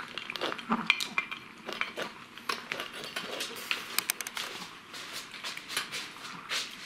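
A Pomeranian eating from a stainless-steel bowl: irregular clinks and rattles of dry kibble and the dog's muzzle against the metal as it licks out the wet food and flicks the kibble pellets out of the bowl.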